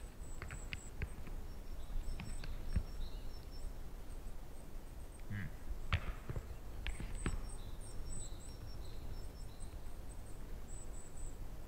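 Forest ambience: a steady low rumble with faint, short, high bird chirps and scattered sharp clicks and knocks, the loudest about six and seven seconds in.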